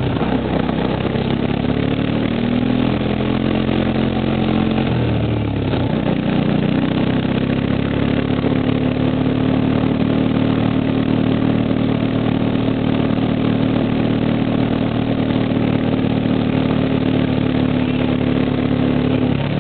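Engine of the vehicle towing the mattress running at a steady speed on a gravel road. Its pitch shifts a few times and drops about five seconds in, then holds steady, over a constant rushing road noise.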